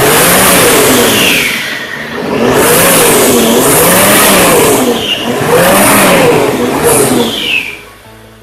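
Toyota Land Cruiser 80's 4.2-litre inline-six turbo-diesel revved up and down several times in loud surges, with a high whistle that falls away as the revs drop.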